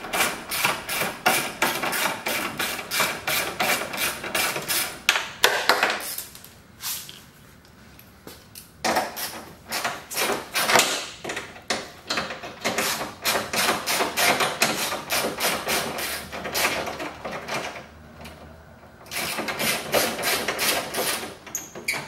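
Hand ratchet with a 10 mm socket clicking quickly in runs as it backs out headlight mounting bolts, with a pause of a few seconds about six seconds in and a shorter one near the end.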